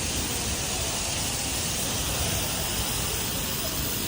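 Steady hiss of a water spray washing down a tractor, with a low rumble underneath.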